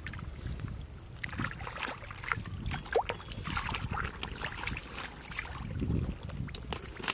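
Hands squelching and sloshing through shallow mud and water, with irregular small splashes and wet slaps, a sharper one about three seconds in.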